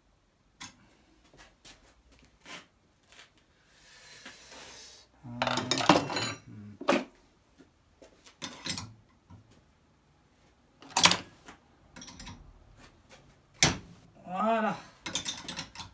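Metal tools and engine parts clinking and knocking in irregular strokes during the stripping of a Peugeot 103 moped engine's bottom end. There is a short hiss a few seconds in, then a louder clatter, and more sharp knocks later on.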